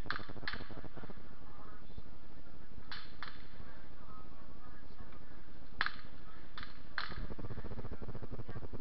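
Distant muzzleloading rifle shots: seven sharp cracks in loose, irregular pairs and threes, the loudest about six seconds in, over a steady low rumble and hiss.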